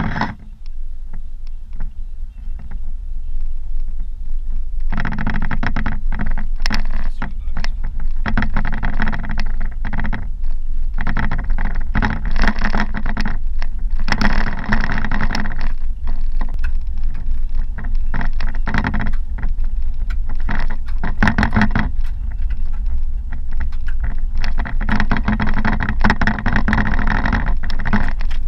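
Car driving on a rough gravel road: a constant low rumble of tyres on the dirt, with a loud buzzing rattle and clatter that sets in about five seconds in and swells and fades several times.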